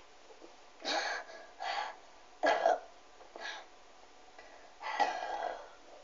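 A person coughing and breathing hard in five short bursts, the third the loudest, while gulping down a can of fizzy cola without stopping.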